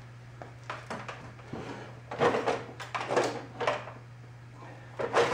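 A string of short, irregular scrapes and clunks of hands handling tools and metal parts, over a steady low hum.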